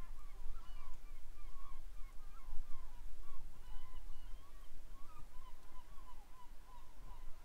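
A flock of birds calling, many short overlapping calls, several a second, going on without a break.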